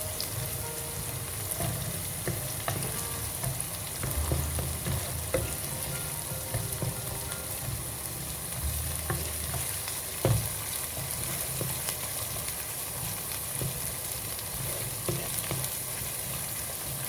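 Onion, bell pepper and tomato paste sizzling in hot oil while being stirred, the paste being fried to cook off its raw taste. There are scattered light clicks and one sharper knock about ten seconds in.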